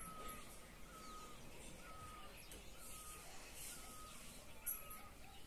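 Birds calling faintly: a short, slightly falling note repeated about twice a second, with scattered higher chirps.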